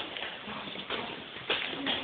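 Footsteps of people walking, a few sharp steps standing out about a second in and again near the end.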